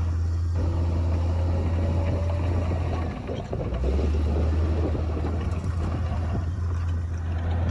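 Komatsu D58P bulldozer's diesel engine running under work, a steady low drone over a rough clatter; the engine note dips briefly a little past three seconds in, then settles slightly lower.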